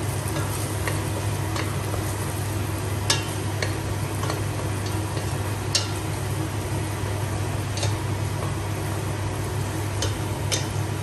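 Diced onion sizzling in oil in a stainless-steel pressure cooker as a wooden spoon stirs it, with a few light clicks of the spoon against the pot. A steady low hum runs underneath.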